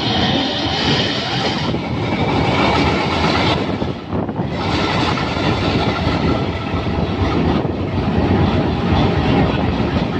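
ALCO 12-251C4 V12 diesel engine of a Hitachi PHA-20 diesel-electric locomotive running loudly just after being cranked to life. It dips briefly about four seconds in.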